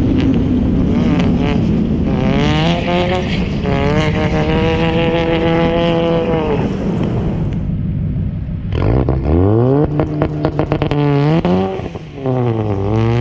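Turbocharged four-cylinder engine of a Ford Mustang EcoBoost revving hard while drifting. Its pitch climbs and holds, eases off around seven seconds in, then climbs steeply again about nine seconds in with quick rises and falls. It drops briefly near the twelve-second mark and rises once more.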